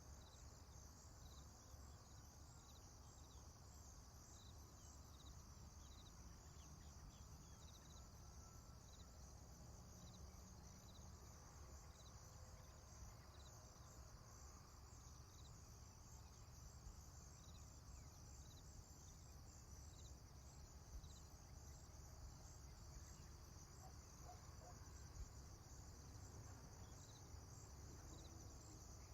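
Faint farm morning ambience: a steady high insect chirring with small chirps at even spacing, over a low rumble, with a few faint, distant bird notes.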